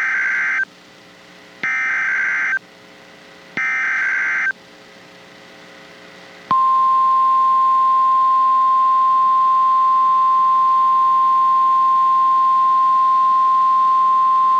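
Emergency Alert System tones: the SAME digital header, heard as three short bursts of data tones about two seconds apart, announcing a tornado warning. About six and a half seconds in, the steady single-pitch 1050 Hz NOAA Weather Radio warning alarm tone starts.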